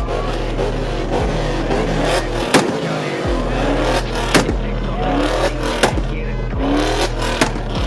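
Ford Mustang GT's V8 exhaust being revved, the pitch rising and falling several times, with sharp pops and bangs from the exhaust every second or so.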